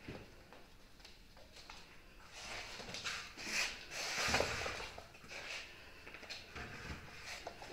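Dalmatian puppies scuffling and playing on a wooden floor: rustling, loudest midway, with a few light taps of paws.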